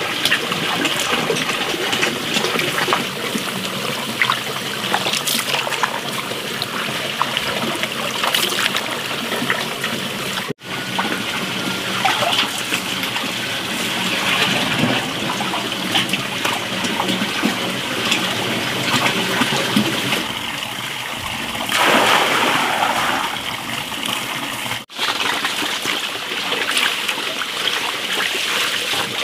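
Water splashing and sloshing as napa cabbage leaves are washed by hand in a basin, over a steady trickle of running water. It drops out briefly twice and swells louder for a moment a little before the end.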